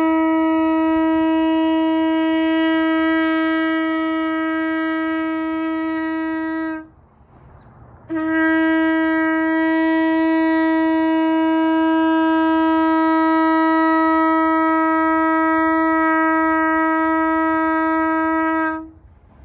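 Shofar blown in long, steady held notes at one pitch: a note that breaks off about seven seconds in, then after a short pause a second note held for about ten seconds, stopping shortly before the end.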